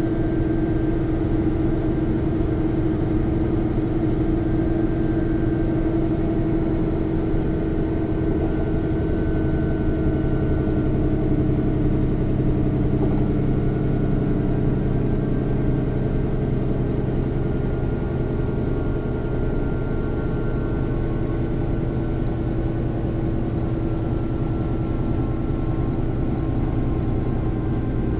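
Mercedes-Benz O 405 N low-floor city bus under way, heard from inside the passenger cabin: the rear six-cylinder diesel engine runs loud and steady, with a faint whine from the rear axle's final drive above it, while the gearbox stays quiet underneath.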